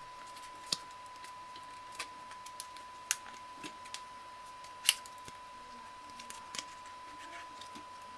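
Quiet room tone with a faint steady tone, broken by a handful of small, sharp clicks and taps at irregular moments. The sharpest click comes about five seconds in.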